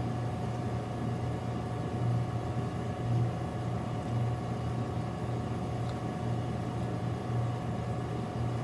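Steady low machine hum with a faint steady higher tone above it, unchanging throughout.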